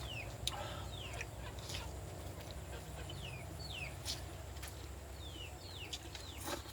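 Chickens calling: a string of short, high peeps, each falling in pitch, a second or so apart, with a few light knocks in between.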